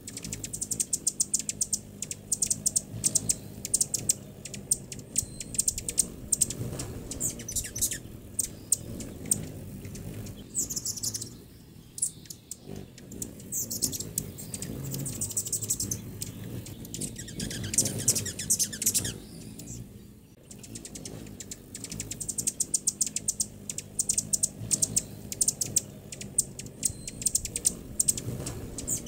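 Hummingbirds chattering at a feeder: quick runs of high, dry chip notes that come in bursts and pause.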